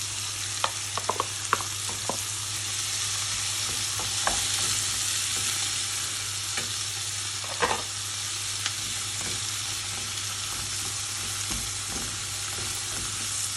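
Onion and chopped peppers sizzling in hot oil in a pan, a steady hiss, with a spoon now and then clicking and scraping against the pan as they are stirred.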